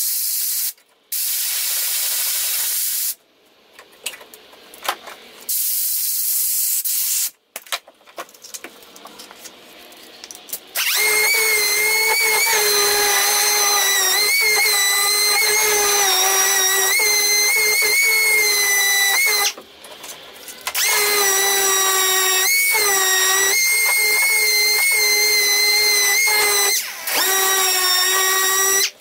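Compressed air hissing from a blow gun in short blasts, cooling the heated aluminum bedside panel. About eleven seconds in, a DeWalt random orbital sander starts running on the bare aluminum with a steady whine. It stops for about a second near the middle, sags in pitch briefly when pressed harder, and cuts out for a moment near the end.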